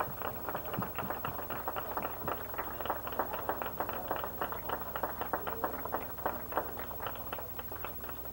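Hands clapping, sharp claps coming thick and fast at about four a second: an audience applauding, with the nearest clappers standing out.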